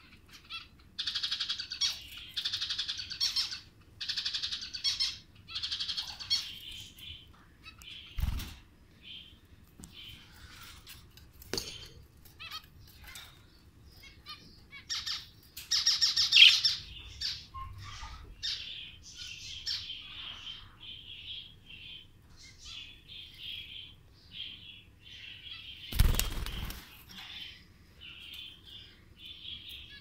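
Pet cage birds chirping: quick runs of short, high chirps, densest in the first few seconds and loudest about halfway, then steady lighter chirping. A dull thump sounds about a quarter of the way in and a louder bump near the end.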